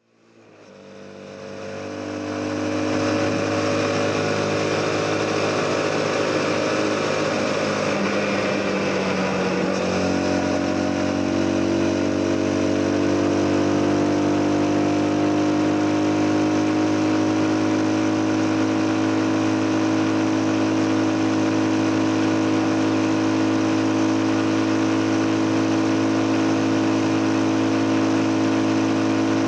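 CF Moto 250NK motorcycle engine running under way with wind and road rush, fading in over the first few seconds. About ten seconds in, the engine note drops and shifts, as at a gear change, then holds steady and climbs slowly.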